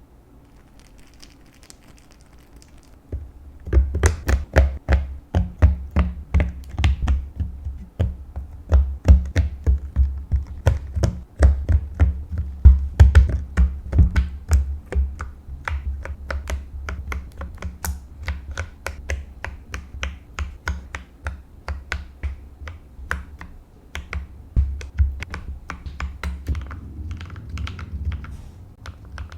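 Mechanical keyboard with Akko CS Matcha Green switches being typed on fast, a rapid run of deep, thocky keystrokes. It starts about three seconds in and eases off somewhat in the second half.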